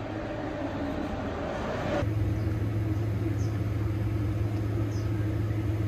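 Outdoor street noise, then from about two seconds in a steady low mechanical hum, like a motor or engine running, that starts and stops abruptly.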